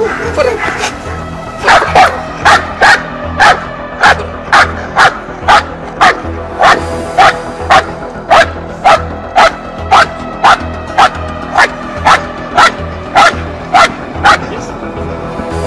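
Belgian Malinois barking in a long, even run of about two dozen barks, about two a second, starting about two seconds in and stopping near the end, over background music.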